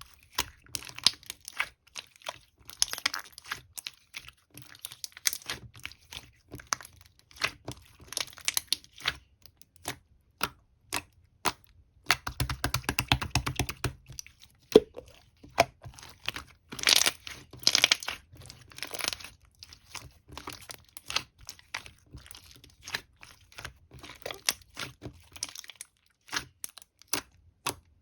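Clear slime being worked by hand, making many sharp popping and crackling clicks. The crackling gets dense about halfway through and again a little later.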